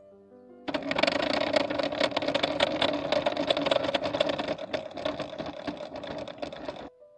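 DeWalt FlexVolt 60V cordless table saw running with its blade spinning free, no wood being cut: a loud, steady motor-and-blade noise that starts abruptly under a second in and cuts off abruptly about six seconds later.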